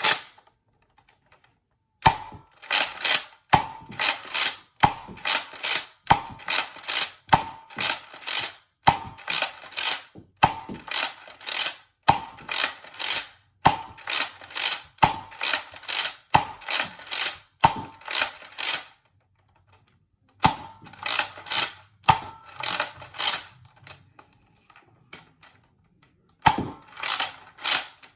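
Nerf Rival Artemis pump-action blaster being fired repeatedly: each cycle is a sharp clatter of the pump stroke and the foam ball firing, about one shot every 1.3 seconds. The shooting stops twice briefly, near the two-thirds mark and again shortly before the end.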